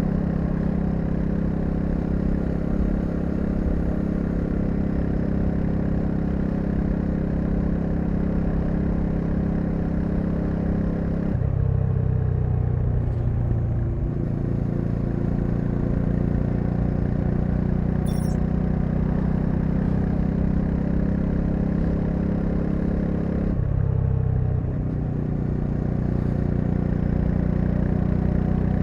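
Bajaj Dominar 400's single-cylinder engine running steadily under way. Twice, about eleven seconds apart, the engine note drops suddenly and then climbs back.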